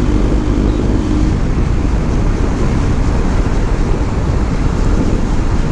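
Wind rushing over the rider's microphone on a moving motorcycle, a dense steady roar with engine and road noise underneath. A steady engine hum fades out about a second in.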